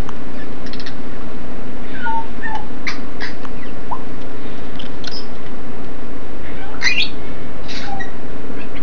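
Steady rain on an aviary's plastic roof, with African grey parrots giving scattered short whistles, squeaks and clicks over it; the calls cluster most loudly about seven seconds in.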